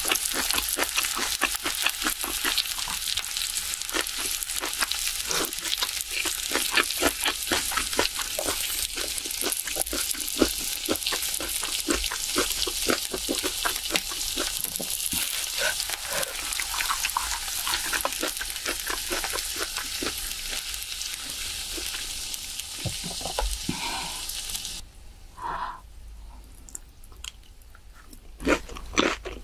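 Pork belly slices and kimchi sizzling and crackling on a hot grill plate, a dense spitting crackle of rendering fat. About 25 seconds in the sizzle stops abruptly, leaving faint eating sounds.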